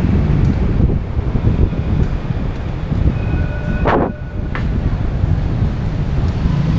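Steady low rumble of wind on the microphone and road noise from a moving bicycle riding beside car and tram traffic, with a brief knock about four seconds in.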